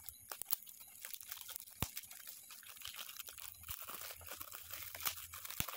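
Shiny metallic gift wrap crinkling and tearing as it is pulled open by hand: a dense run of small crackles with a few sharper clicks.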